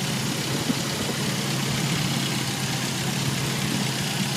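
Jeep YJ's 2.5-litre four-cylinder engine idling steadily shortly after a cold start.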